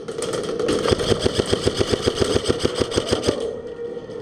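Airsoft electric gun (AEG) firing on full auto: a rapid, even rattle of about ten shots a second lasting roughly two and a half seconds, then stopping.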